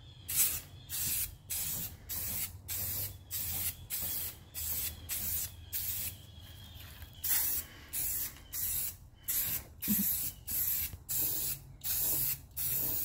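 Aerosol spray can of rust reformer paint spraying in short hisses, about two a second, with a pause of about a second just past the middle.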